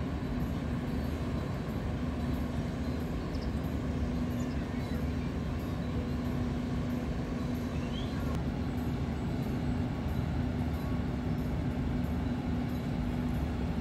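Steady low rumble of a docking cruise ship's engines and thrusters, with a constant hum running over it.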